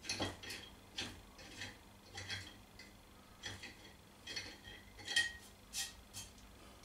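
Irregular light metallic clicks and clinks of a tap and tap wrench being worked by hand through a welded-on steel captive nut held in a bench vise, cleaning up its dirty thread. The sharpest click comes about five seconds in.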